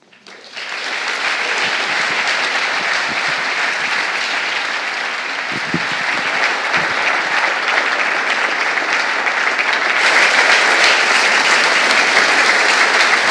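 Large audience applauding, a dense steady clapping that starts about half a second in and grows a little louder near the end.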